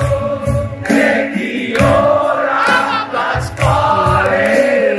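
Music with singing voices over a steady low beat.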